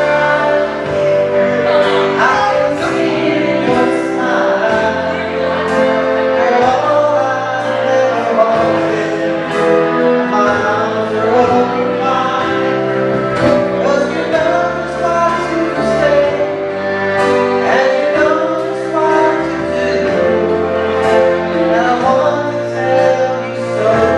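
Karaoke: a man singing into a microphone over a loud backing track with bass and a steady beat.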